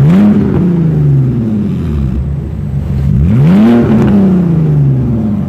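BMW Z4 E85 3.0i's straight-six, with the rear silencer (backbox) deleted, revved twice in neutral. Each time the pitch climbs quickly and then falls back to idle over about a second: the first rev peaks right at the start, the second about three and a half seconds in. The sound comes out loud and raw through the open exhaust tips and echoes in an enclosed car park.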